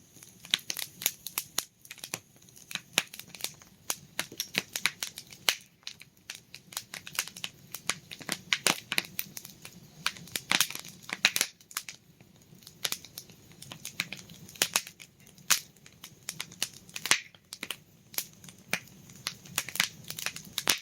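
Wood campfire crackling, with irregular sharp pops and snaps of varying loudness in quick succession.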